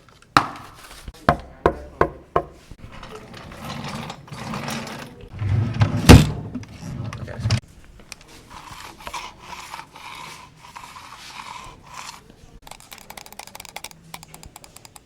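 A string of short classroom sounds: about five knocks on wood, a chair scraping, a desk drawer banged shut with one hard impact, a computer mouse sliding across a desk, then a flurry of mouse clicks near the end.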